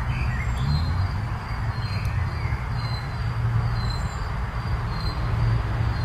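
Forest ambience: a short high chirp repeating a little more than once a second, a few bird calls, and a steady low rumble underneath.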